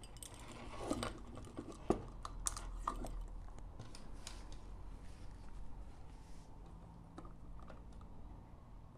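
Light scattered clicks and rattles of plastic connectors, wires and a metal-and-plastic projector lens being handled while an H1 xenon bulb is fitted into a bi-xenon lens, with a few sharper clicks about two to three seconds in.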